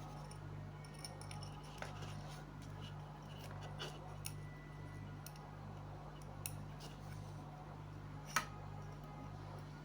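Faint clicks and light taps of small tools and wires being handled during bench work, with one sharper click near the end, over a steady low electrical hum.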